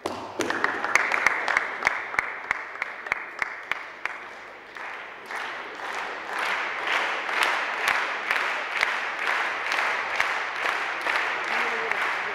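Spectators applauding a won point, with sharp, distinct claps close by; the applause eases about four seconds in, then swells again.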